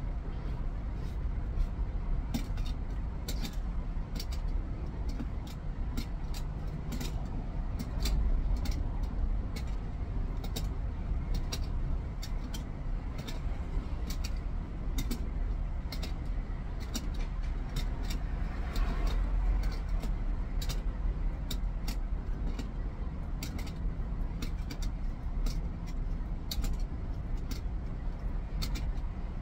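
Steady low vehicle rumble, with many faint clicks scattered irregularly through it.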